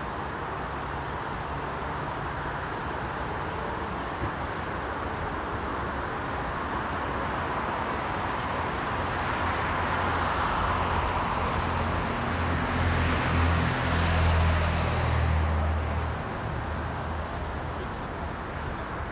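Road traffic: a steady hum, with a motor vehicle passing close by, its engine and tyres loudest about 13 to 15 seconds in before fading.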